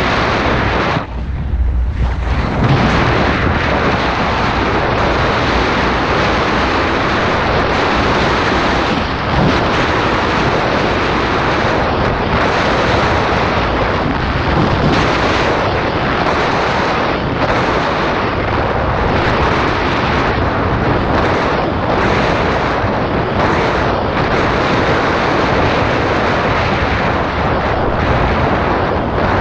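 Loud, steady rush of wind on the microphone mixed with the rumble and rattle of a mountain bike riding down a dirt trail, dipping briefly about a second in.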